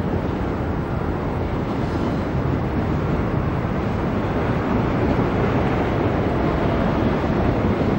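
Suburban electric train running along an elevated railway viaduct: a steady rumble of wheels on rails, growing slightly louder.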